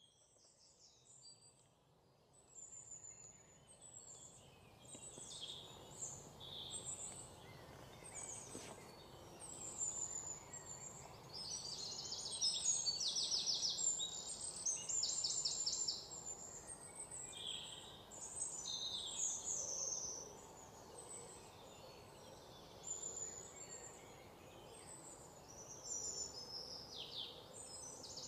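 Bird chorus: many birds calling and chirping over a faint steady background hiss, with several fast trills. It fades in over the first few seconds.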